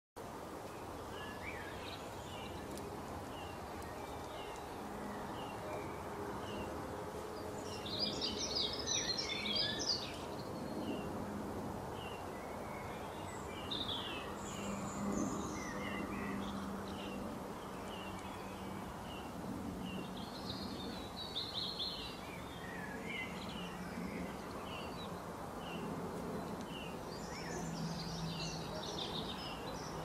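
Birds chirping: a steady run of short chirps, more than one a second, with louder bursts of twittering song about eight seconds in and again around fifteen, twenty-one and twenty-eight seconds, over a steady low hum.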